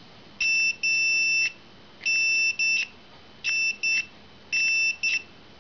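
A multimeter's continuity beeper sounding in irregular bursts, some brief and some nearly a second long. It cuts in and out as the circuit through a motorcycle ignition switch makes and breaks while the key is wiggled. This is intermittent contact, which the owner puts down to either a faulty ignition switch or the meter.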